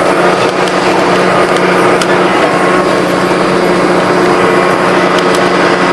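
A turbocharged diesel tractor engine running steadily, with a few light clicks.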